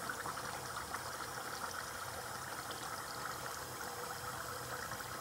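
Bathroom tap running steadily into a sink.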